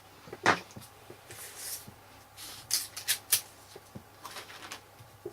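Paper being handled and rustled, with a few short, scratchy strokes and a sharp tap about half a second in.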